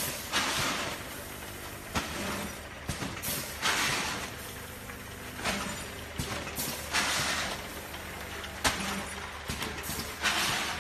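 KL-620 automatic vertical packing machine running through its bagging cycles. Every second and a half or so there is a short rushing hiss, with sharp clicks and knocks from the mechanism between.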